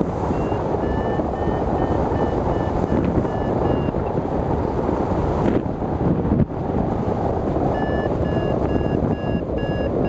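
Strong wind noise over the microphone of a hang glider in flight, with a variometer beeping in quick short pips, about three a second, for the first few seconds and again near the end. The vario beeps mean the glider is climbing in lift.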